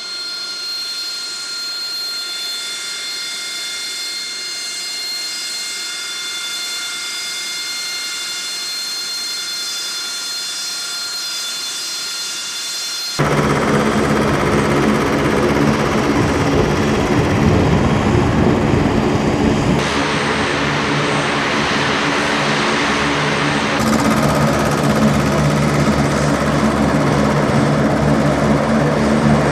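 AV-8B Harrier II's Pegasus turbofan running at idle: a steady high-pitched whine made of several fixed tones. About 13 s in it cuts suddenly to the louder, steady engine noise of flight-line ground equipment moving bombs, with a deep running drone.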